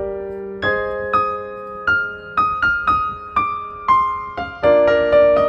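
Background piano music: single notes struck one after another and left to ring away, with a fuller chord near the end.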